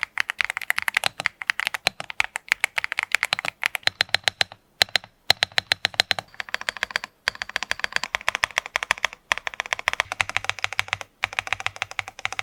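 VortexSeries Xera87 gasket-mount TKL mechanical keyboard typed on fast: a dense run of key clacks from its Otemu Jet White switches and PBT keycaps, broken by a few brief pauses.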